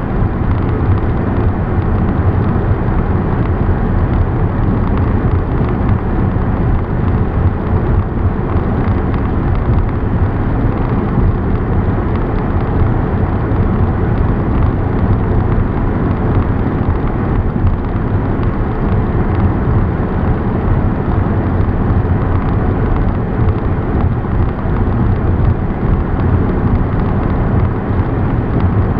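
Steady low rumble of a car driving at highway speed: road, engine and wind noise with no breaks or changes.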